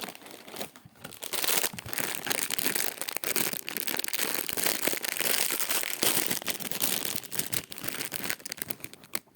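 Plastic biscuit bag crinkling and rustling as it is handled and opened, starting about a second in and dying away near the end.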